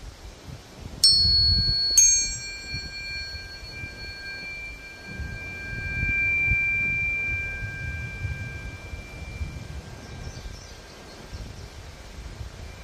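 A pair of tuning forks tuned a perfect fifth apart, C and G, struck one after the other about a second apart, each strike giving a brief bright clang. They then ring together as two steady pure tones, which swell about six seconds in and die away by about ten seconds.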